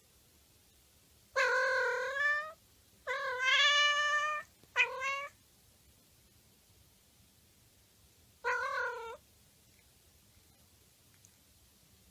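A cat meowing four times: three drawn-out calls close together, the second the longest, then a last one a few seconds later.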